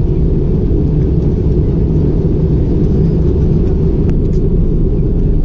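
Jet airliner cabin noise in flight, heard from a window seat: a steady, loud, low rumble of engines and airflow.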